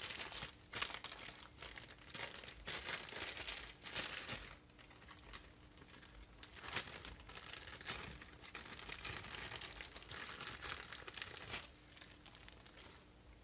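Clear plastic bag crinkling and rustling in irregular bursts as a new connecting rod is unwrapped from its packaging; the crinkling stops a couple of seconds before the end.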